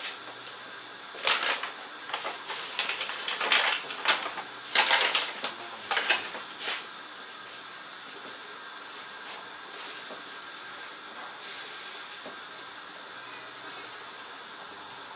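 Rustling and handling noises from people working at a kitchen table: a string of irregular short scrapes and crinkles for about the first six seconds, then only a steady background hiss.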